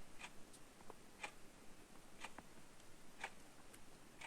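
Near silence with faint, regular ticks about once a second, like a clock ticking in a quiet room.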